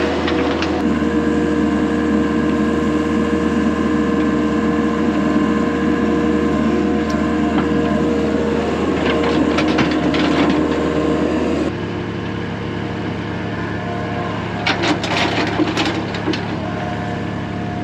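Tracked excavator's diesel engine running steadily under load while its bucket digs into the soil, with scrapes and knocks from the bucket. About twelve seconds in, the sound cuts to a quieter, steady engine hum, with another short run of knocks a few seconds later.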